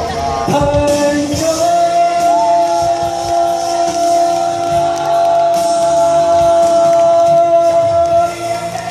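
Male singer holding one long high note over live band accompaniment in a large hall, the closing line of a Mandarin pop ballad; the note breaks off about eight seconds in.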